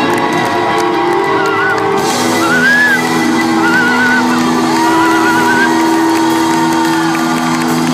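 Live rock band holding long sustained chords, with a few wavering, gliding high notes over them, in a large hall.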